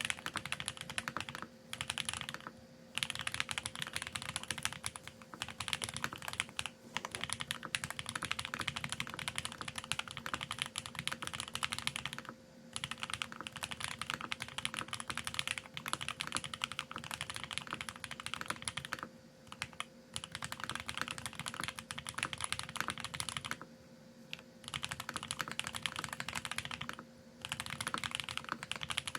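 Fast typing on a Geonworks F1-8X custom mechanical keyboard with lubed TTC Speed Silver v2 linear switches, an aluminium plate and ABS keycaps: rapid keystrokes in long runs, broken by several short pauses.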